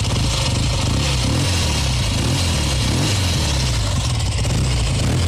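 Kawasaki W1SA 650 parallel-twin motorcycle engine running steadily at a slightly high idle, with a slightly higher exhaust note. The engine has just been rebuilt, with a new crankshaft, connecting rods and crankcase; the earlier knocking from the loose crank and conrod is gone, leaving only slight mechanical noise from the used parts.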